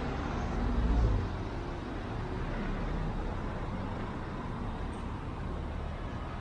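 City street ambience with steady traffic noise, and a brief louder low rumble about a second in.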